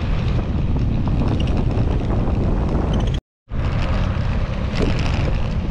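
Wind rushing over the microphone with tyre and road noise from a bicycle rolling along the road. The sound cuts out completely for a split second a little past halfway, then resumes unchanged.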